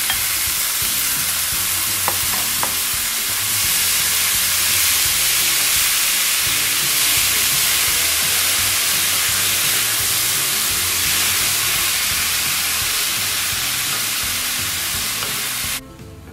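Diced tomatoes sizzling steadily in a hot frying pan of oil and fried garlic as they are stirred with a wooden spoon. The sizzle cuts off suddenly about a second before the end.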